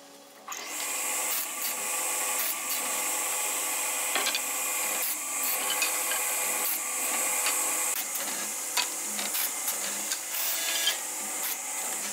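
Table saw running and ripping hardwood boards, a steady high-pitched sound of the spinning blade cutting, starting about half a second in, with frequent knocks of the boards being handled.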